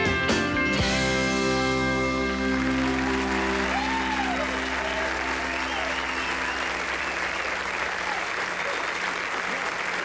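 A country band's final chord on guitars and keyboard rings out and fades over the first two seconds or so, giving way to a studio audience applauding, with a few shouted cheers.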